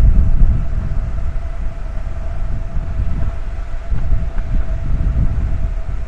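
Wind buffeting the microphone in uneven low gusts on the deck of a moving ferry, over a steady mechanical hum from the ship and the rush of its wake.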